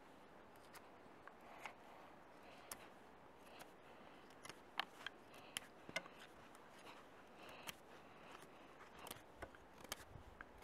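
A fixed-blade bushcraft knife whittling a fresh green wooden stick: quiet, crisp shaving strokes coming irregularly, the loudest about halfway through.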